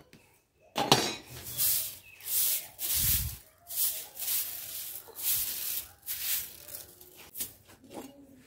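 Short straw hand broom sweeping ash and grit off a clay hearth and concrete floor: a series of brisk scratchy strokes, about one or two a second, starting about a second in and growing fainter near the end.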